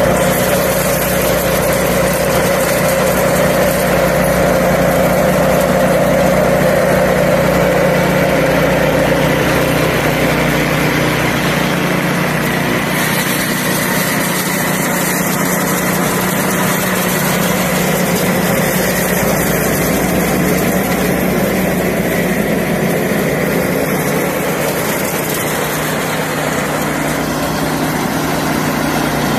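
Small engine-driven stationary thresher running steadily while dried soybean plants are fed in for threshing.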